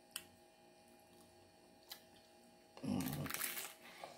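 A bite into a crunchy hard taco shell, crunching for about a second near the end, after two faint clicks earlier on.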